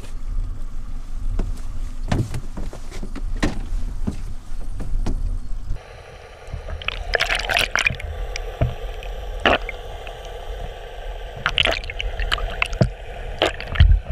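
Low rumble and scattered knocks on a boat. About six seconds in, the sound drops abruptly and turns to muffled underwater gurgling with clicks and knocks.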